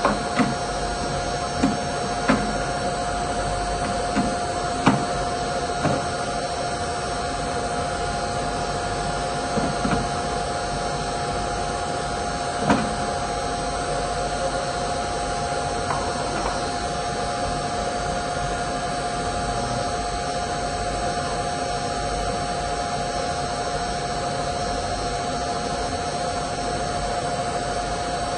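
A steady mechanical hum with a constant tone runs throughout. In the first half, short clicks and clacks come every second or so as parts of a Zumex juicer are handled.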